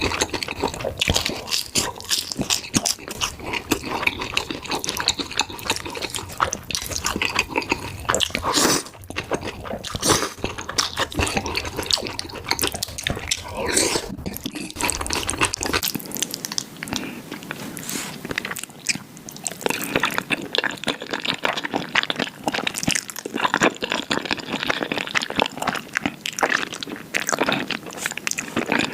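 Close-miked eating of black bean noodles (jjajangmyeon): wet chewing and slurping, heard as a dense run of small mouth clicks. About halfway through, the low background drops away.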